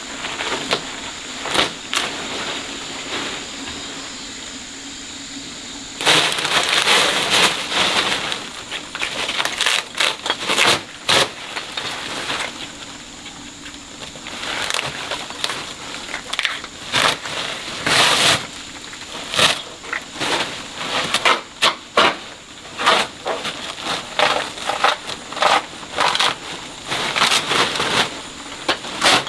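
Irregular knocks, clatter and cracking of wooden boards and timber supports being handled and broken apart, busier and louder from about six seconds in.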